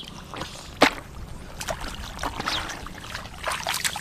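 Shallow water splashing and sloshing as hands work through it, with scattered sharp slaps and one loud splash about a second in.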